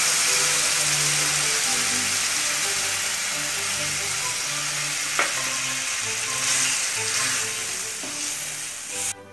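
Masala and oil in an aluminium kadai sizzling hard just after water is poured in for the gravy, the hiss slowly dying down as the water heats. A single spatula knock on the pan about halfway, and stirring near the end. Background music plays underneath.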